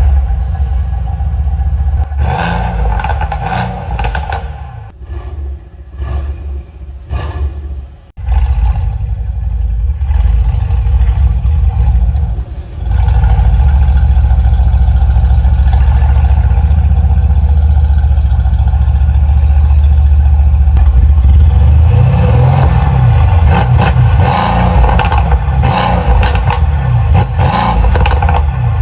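Mercedes-AMG C63 S 4.0-litre twin-turbo V8 running through aftermarket catted downpipes, with its exhaust valves held fully open. There are several short throttle blips in the first eight seconds, then the engine is held loud at revs for most of the rest, with a brief dip about twelve seconds in.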